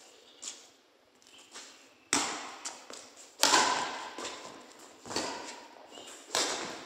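Badminton rackets striking a shuttlecock in a rally: sharp hits every half second to a second or so, each with a short echo. The two loudest come about two and three and a half seconds in.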